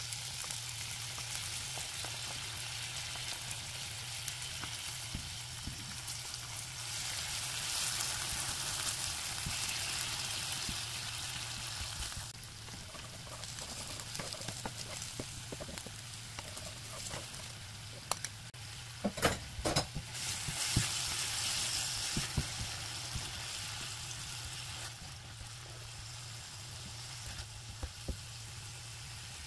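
Diced radish kimchi and green onion sizzling in a hot nonstick frying pan as they are stirred and turned with a spatula. The sizzle swells for a few seconds about a quarter of the way in, and a cluster of sharp clicks and taps of the utensils against the pan comes about two-thirds through.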